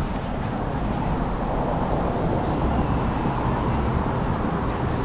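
Road traffic on a city street, with a vehicle passing and the noise swelling for a couple of seconds in the middle.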